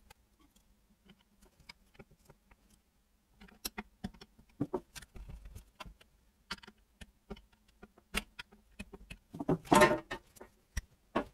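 Metal tools and parts of a Kawasaki KM90's small engine clicking and knocking as it is taken apart by hand. A few faint clicks at first, more frequent from about three seconds in, then a louder clattering burst near the end.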